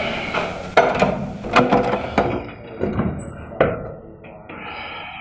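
A run of sharp knocks and clicks, about four strong ones spread over the first four seconds, like something hard being handled.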